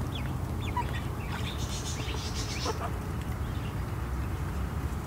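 Duckling and hens calling: several short, high, falling peeps in the first second and a half and a lower falling call near the middle, with a brief rustle midway.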